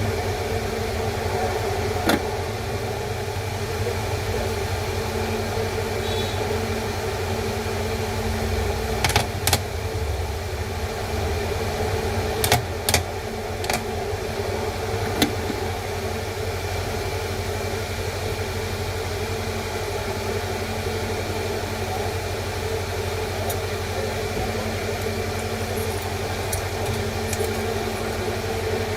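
Steady machine hum with several fixed tones, broken by a few sharp clicks in the first half.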